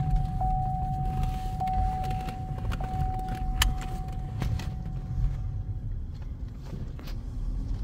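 Cadillac being driven, heard from inside the cabin: steady road and engine rumble. Over it a single steady high tone runs until about six seconds in, and there are a few sharp clicks, the strongest about halfway through.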